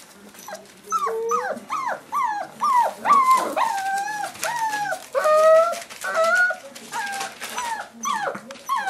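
Five-week-old Boerboel puppies whining and yelping: a run of short, high calls, many dropping in pitch, starting about a second in and following one another almost without a break.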